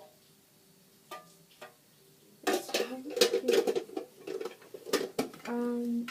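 Small hard objects clattering and knocking as a container of belongings is handled and rummaged through, starting a couple of seconds in, followed near the end by a brief steady pitched tone.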